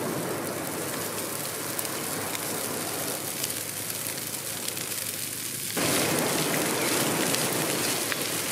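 Sea waves washing onto a sandy beach, a steady rushing hiss that turns abruptly louder about six seconds in.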